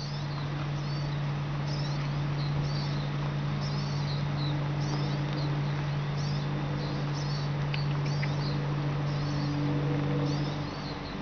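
Short high-pitched chirping calls, repeating about once a second, over a steady low hum.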